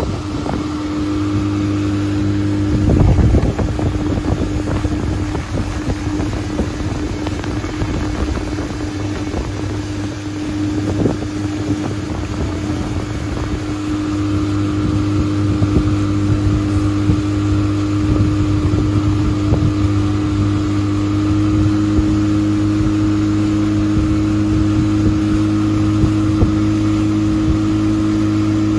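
Outboard motor of a Tracker bass boat running steadily at speed. A few heavy thumps come through, the loudest about three seconds in.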